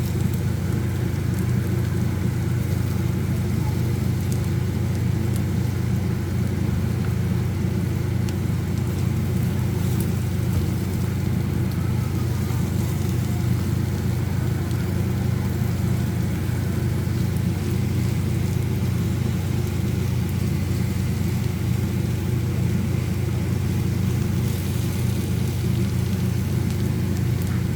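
Steady sizzling of bitter melon sautéing in a hot pan, over a constant low hum that is the loudest part of the sound.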